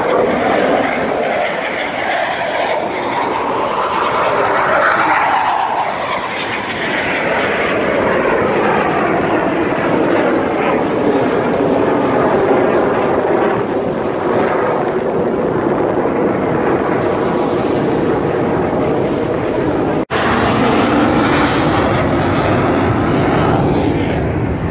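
Military jet engine noise as a fighter jet makes a low pass and climbs away. A whine glides down in pitch as it goes by, about five seconds in.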